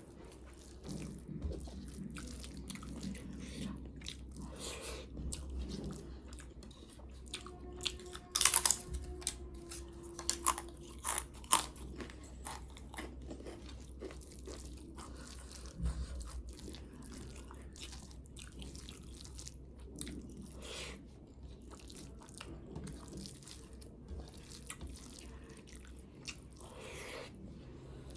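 Close-miked eating: steady chewing with crisp crunches, typical of biting into papad. A cluster of louder sharp crunches or clicks comes about a third of the way in, one leaving a short ring.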